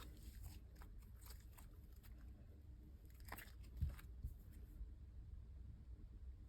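Faint sticky clicks and crackles of slime being handled and pressed by hand, with a soft thump a little before four seconds in.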